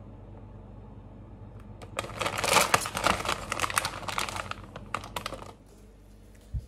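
Plastic instant-noodle packet crinkling as it is pulled open and handled, a dense crackle lasting about three and a half seconds starting about two seconds in. A single short knock near the end.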